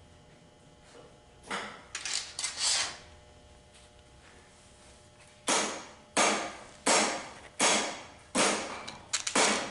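Hand-tool work on metal transmission parts: a few scraping strokes, then a regular run of about six knocks or strokes, roughly one every 0.7 seconds, each starting sharply and fading quickly.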